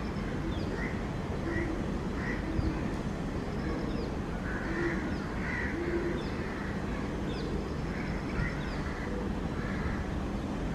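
Birds calling again and again in short, irregular calls over a steady low background rumble.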